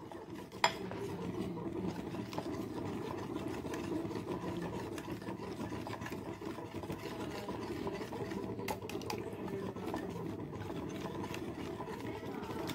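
Wire whisk stirring a thin milk, banana and melted-ghee mixture in a glass bowl: a steady swishing, with a sharp click of the whisk against the glass just under a second in and another near nine seconds.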